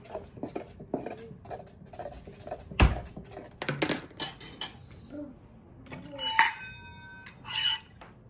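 Kitchenware being handled: small clinks and knocks of dishes and utensils, with a loud knock about three seconds in. About six seconds in, a metal object is struck and rings briefly, and a second clink follows.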